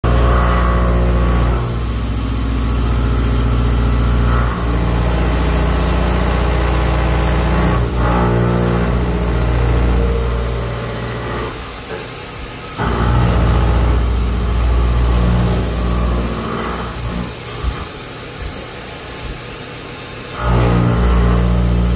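CNC mill heavy-cutting 304 stainless steel with a 2-inch indexable high-feed face mill: a loud, steady low drone from the cut. It goes quieter twice, for a few seconds each, in the middle and toward the end.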